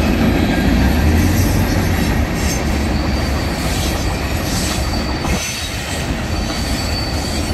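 Long freight train of tank cars and boxcars rolling steadily past on steel wheels, with a thin high wheel squeal coming and going in the second half.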